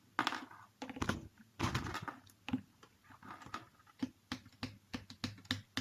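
Irregular small metallic clicks and taps from an industrial sewing machine's presser-foot mechanism being worked by hand while its height is lowered and reset, coming quicker in the second half.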